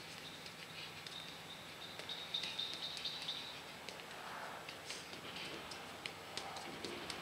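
Faint bird chirps: a thin high twittering call about a second in, and short scattered chirps after it.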